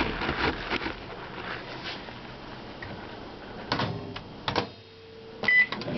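A spoon clinks against a ceramic mug as milk is stirred. About four seconds in come a few sharp knocks, then a short high microwave keypad beep near the end.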